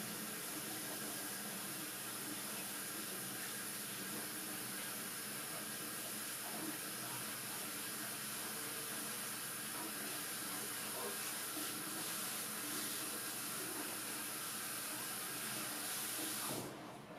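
Kitchen tap running steadily, an even rush of water that stops abruptly near the end.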